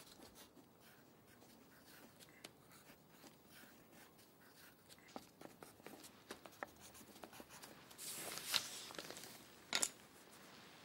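Pencil scratching on paper as a small cross is sketched. About eight seconds in comes a louder rustle of the paper, and a sharp tap follows shortly before the end.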